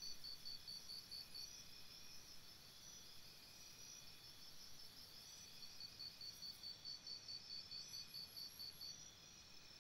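Near silence with faint insect chirping: quick, high, evenly spaced chirps, about five a second, in two runs with a pause in the middle.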